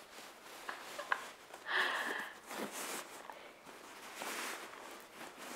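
Cotton dust bag rustling as a leather handbag is pulled out of it by its handles, with a few light clicks about a second in.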